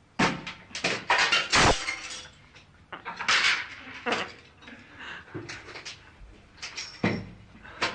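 Ceramic wall tiles being knocked at and handled, a string of sharp knocks and clattering clinks of tile against tile, the loudest a little over a second and a half in and again about three seconds in.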